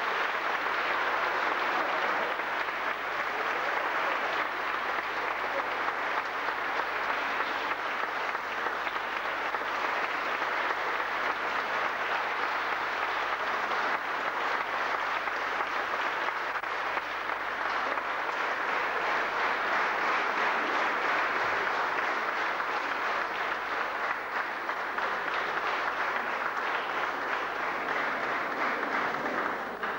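Audience applauding steadily, a dense patter of many hands clapping, which stops abruptly at the end.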